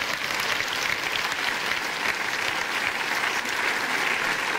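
Studio audience applauding steadily, dense hand clapping.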